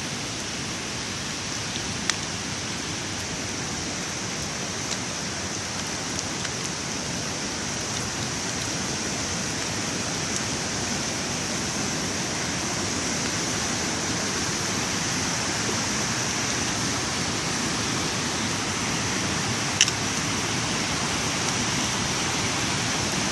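Steady rush of a waterfall and stream running high with rain and meltwater, growing slowly louder, with a few faint clicks.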